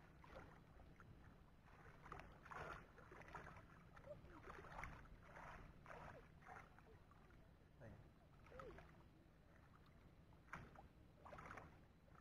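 Faint sloshing of shallow muddy paddy water and rustling grass, in irregular short bursts, as a plastic pipe is worked down into the flooded bank.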